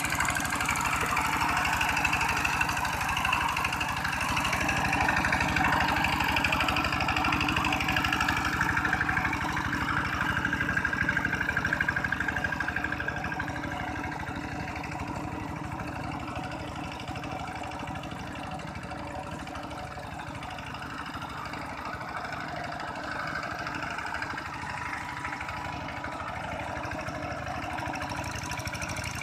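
Single-cylinder diesel engine of a walk-behind two-wheel hand tractor chugging steadily as its cage wheels churn through a flooded rice paddy. It is loud at first and grows quieter about halfway through.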